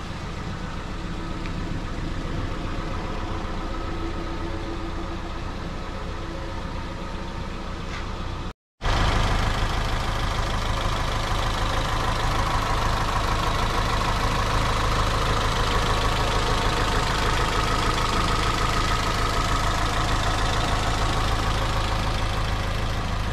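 Toyota MR2 Roadster's 1.8-litre VVT-i four-cylinder engine idling steadily. There is a brief break about eight and a half seconds in, after which it is louder and closer, heard over the open engine bay.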